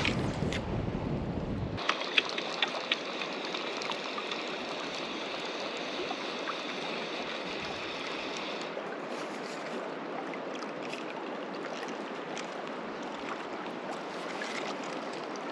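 River water running steadily. Wind rumbles on the microphone for the first couple of seconds, then come a few sharp clicks and a steady high-pitched buzz that stops a little past halfway.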